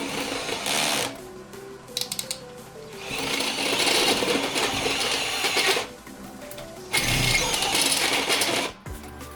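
Arc welder crackling and buzzing in three short bursts, tacking steel supports onto the grate, over background music.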